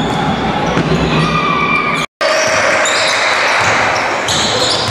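Basketball game sound on an indoor hardwood court: a ball bouncing, short high sneaker squeaks and steady hall noise. The sound cuts out for a moment about two seconds in, then carries on.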